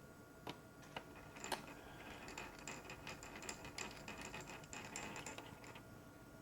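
Faint light clicking and ticking of a small screwdriver tightening a screw into a laptop's frame: a few separate clicks in the first second and a half, then a denser run of small clicks.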